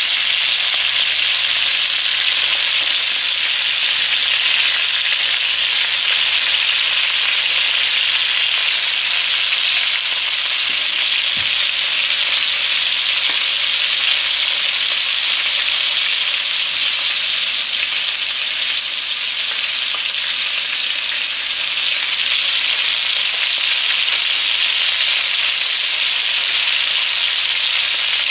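Chicken thighs and drumsticks shallow-frying in oil in a frying pan: a steady sizzle.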